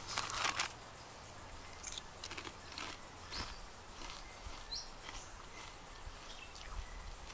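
Foil crisp packet crinkling as a hand reaches in, then scattered crunches of a thick-cut, hand-cooked potato chip being chewed.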